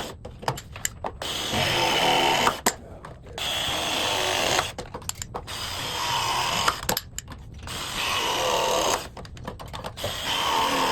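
A power tool run in about five bursts of roughly a second each, with clicks and small knocks in the pauses between.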